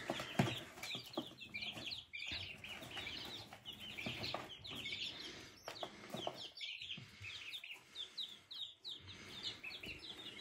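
A brood of five-day-old chicks peeping continually, many short high cheeps overlapping one another, with a few soft knocks among them.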